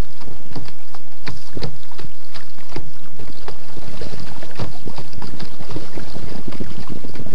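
Sit-on-top kayak being paddled: irregular splashes and knocks of water from the paddle and against the hull, several a second, over wind on the microphone.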